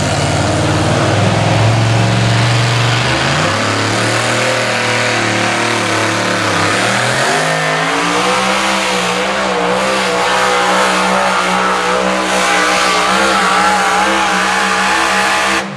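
Engine of a 6,200 lb two-wheel-drive Chevrolet pulling truck at full throttle, dragging the weight-transfer sled down the track. Its pitch climbs in steps through the first half, then holds high and steady.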